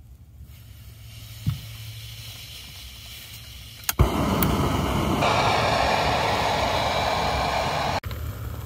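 Canister backpacking stove being lit: a faint hiss and a click, then about four seconds in a sharp pop as the burner catches, and the lit burner runs with a loud steady rushing hiss. Near the end it cuts to a quieter steady hiss.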